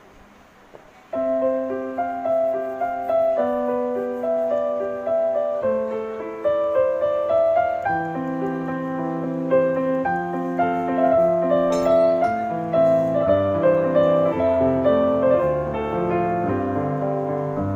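Background piano music, gentle and steady, starting about a second in after a brief near-quiet pause.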